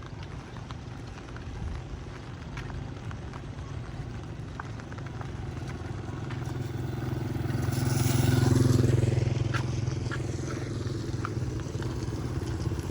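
Rain on a street: a steady wash with scattered drop ticks. A motor vehicle passes on the wet road, its engine and tyre hiss swelling to a peak about eight seconds in, then fading.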